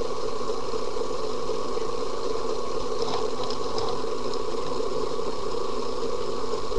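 Steady hum and hiss of a webcam microphone's background noise, with a few faint high ticks about three seconds in.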